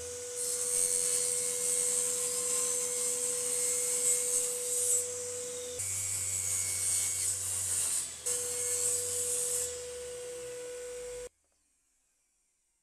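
Jigsaw mounted upside down under a homemade table, running and cutting through a small piece of laminated board, with a steady hum and a loud cutting hiss. The sound changes briefly twice, then cuts off suddenly about eleven seconds in.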